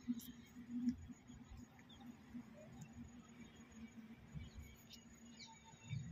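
Quiet outdoor background: a faint steady low hum, with a few soft clicks and light rustles.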